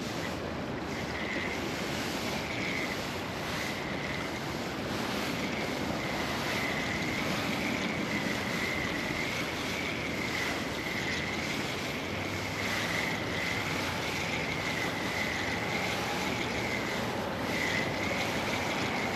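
Steady rush of river water with wind buffeting the microphone, and a faint high tone wavering up and down over and over; a single click right at the start.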